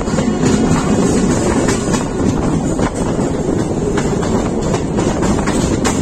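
Steady running noise of a moving passenger train heard from an open coach door: wheels rumbling on the rails, with wind buffeting the microphone.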